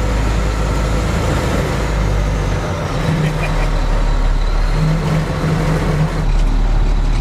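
Oshkosh 6x6 military truck's diesel engine working under load as the truck climbs out of a ravine: a steady, loud low rumble that grows a little louder in the second half.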